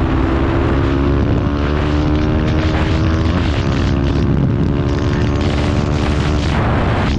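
KTM Duke 390's single-cylinder engine running at high revs under hard acceleration from about 96 to 133 km/h, with a brief dip in pitch a little over three seconds in. Wind rushes over the microphone throughout.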